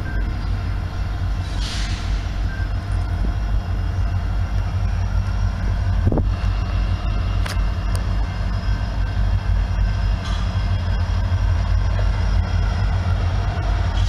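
Diesel freight locomotives of an approaching Union Pacific train, a steady heavy low rumble.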